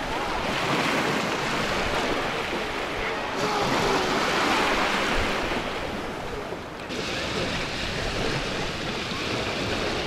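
Sea waves breaking and washing ashore in slow swells, with wind buffeting the microphone.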